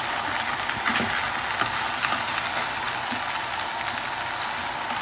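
Samyang instant ramen noodles, coated in their sauce paste, sizzling steadily as they fry in butter and olive oil in a pan, with faint light clicks as chopsticks toss them.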